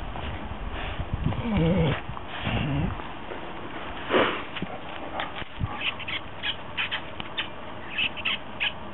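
Electronic plush lips dog toy making short kissing sounds as a dog bites and chews it, with many quick smacks in a row in the second half. A brief wavering pitched sound comes about one and a half seconds in.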